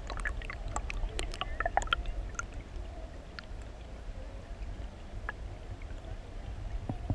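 Water splashing and sloshing close up, with a cluster of sharp splashes in the first couple of seconds over a steady low rumble, then mostly the rumble of moving water.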